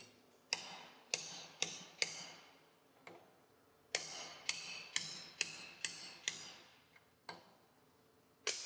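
Ball-peen hammer tapping a punch to drive a slitted spring pin into a shift rail of a Borg-Warner T18 transmission's steel top cover: sharp metallic taps, each with a short ring. Four come in the first two seconds, then a run of six about four seconds in, and a last one near the end.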